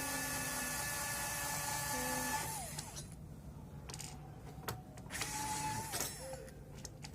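A small electric motor whirs at a steady pitch and winds down with a falling pitch about two and a half seconds in. A second, shorter whir rises and falls near the end, with a few sharp clicks between the two.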